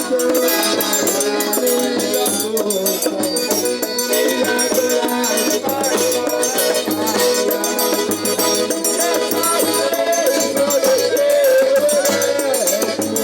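Accordion (sanfona) music with held chords, over a fast, steady shaker rhythm.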